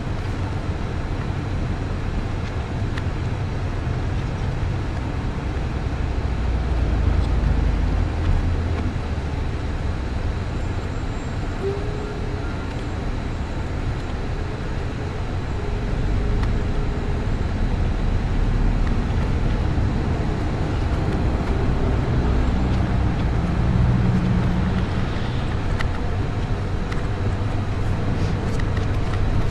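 Steady low rumble of a bus's engine and tyres on the highway, heard from inside the cabin, swelling a little at times.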